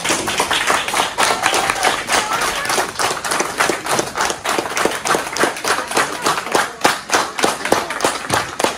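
A crowd clapping: many sharp claps in quick succession throughout, with voices faintly underneath.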